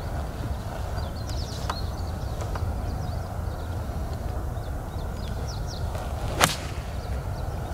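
A pitching wedge striking a golf ball off the tee: one sharp click about six and a half seconds in, over a steady low rumble of wind.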